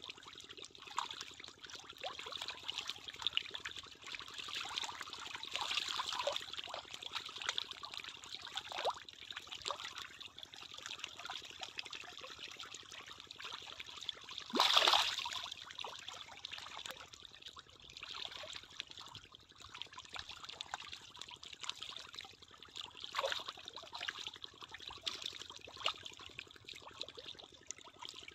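A crowd of fish splashing at a pond's surface, a continual patter of small splashes with one louder splash about halfway through.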